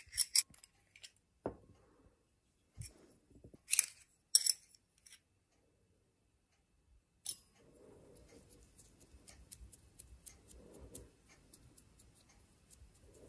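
Small thin-metal fluted tart tins clinking and tapping together as they are handled, with a few sharp clicks in the first half. After a short pause, fingers press soft butter dough into a tin, a soft steady rubbing with faint light ticks from the tin.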